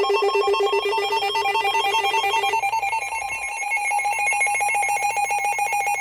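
Emergency Alert System attention signal: a loud, steady two-tone alert tone with a fast flutter, announcing a severe thunderstorm warning. A lower tone beneath it drops out about two and a half seconds in.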